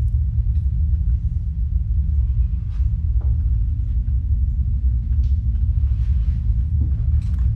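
Loud, steady low rumble, with a few faint clicks scattered over it.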